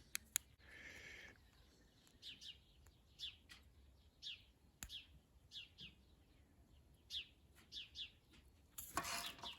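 Faint bird chirping: many short, falling chirps at irregular intervals, after a few sharp clicks at the start.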